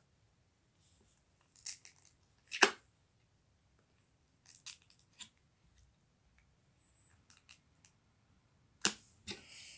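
Purple slime being poked and pressed by fingers, giving a few short, sharp pops and clicks as air is forced out of the holes. The loudest comes about two and a half seconds in, with smaller ones around five seconds and again near the end.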